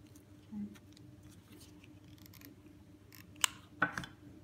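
Small tabletop crafting sounds as satin ribbon is pleated and glued by hand: scattered light ticks, a brief low hum about half a second in, then a sharp click and a short crisp crunch near the end.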